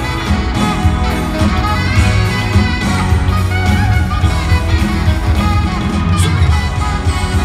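Live pop band playing loudly through an arena sound system, with a saxophone among the instruments.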